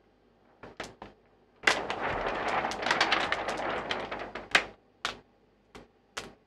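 Clear protective plastic film being peeled off a large TV screen, crackling as it comes away. A few sharp crackles come first, then a dense run of crackling for about three seconds, then a few more single crackles.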